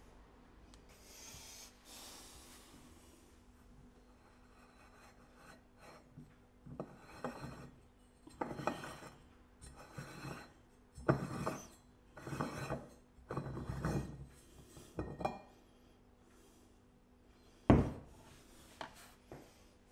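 Threaded metal bottom valve of an antique beer hand-pump cylinder being unscrewed by hand: a series of gritty metal-on-metal scraping turns of up to a second each. Near the end comes a sharp knock as a metal part is set down on the wooden bench, followed by a couple of lighter taps.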